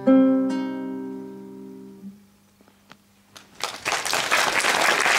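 Acoustic guitar's closing chord of the song, struck once more half a second in, ringing and fading away over about two seconds. After a short quiet, audience applause starts about three and a half seconds in and is the loudest sound by the end.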